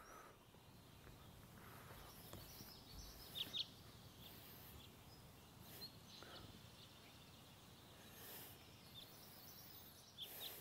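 Near silence: room tone, with a few faint brief sounds, two slightly louder ones close together about three and a half seconds in.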